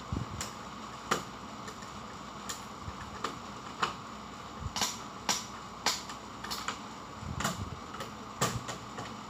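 About a dozen irregular sharp clicks and taps as wires are worked into the DIN-rail terminal blocks of an elevator control cabinet, over a steady background hum.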